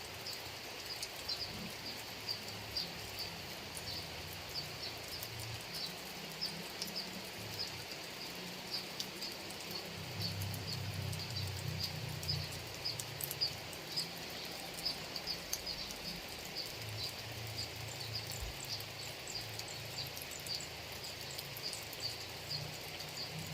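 Steady rain falling over rice paddies, an even hiss, with a short high chirp repeating about twice a second throughout and a low rumble swelling in the middle.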